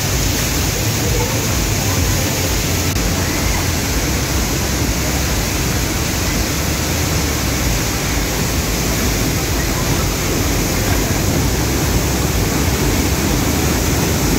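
The Pailón del Diablo waterfall roaring steadily up close: a loud, unbroken rush of falling water.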